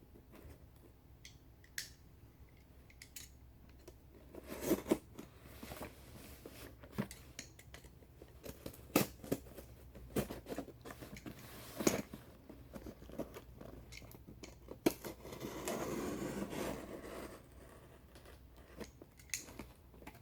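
A cardboard box and its packing being opened and handled by hand: scattered clicks, knocks and scrapes, with a stretch of rustling and crinkling about fifteen seconds in.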